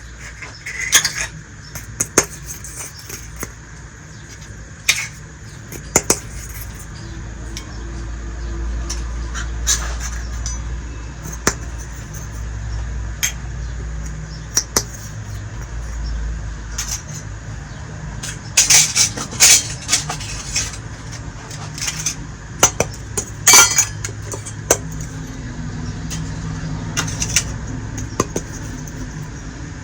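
Small miniature toy kitchen pieces, tiny dishes and utensils, being handled and set down, giving irregular light clicks and clinks that bunch together about two-thirds of the way through, over a steady low hum.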